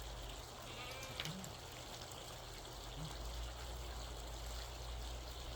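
Water running steadily into a livestock trough from a hose, with a brief high chirp about a second in.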